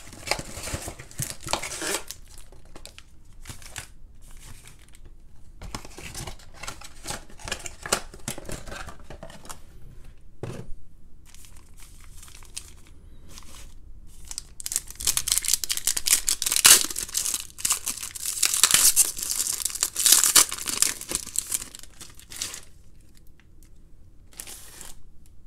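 Trading card packaging being torn open and crinkled by hand: plastic box wrap and pack wrappers ripping and rustling, with a long, loudest stretch of tearing and crinkling past the middle.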